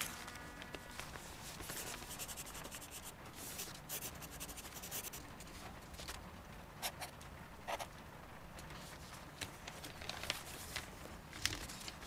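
A folded paper boat being unfolded by hand: the thin paper rustles and crinkles, with a couple of sharper crackles about seven and eight seconds in.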